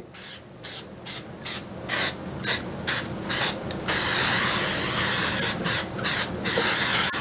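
Pam aerosol cooking spray hissing from the can into a casserole dish: short bursts about twice a second, then one long spray of a couple of seconds, then a few more short bursts.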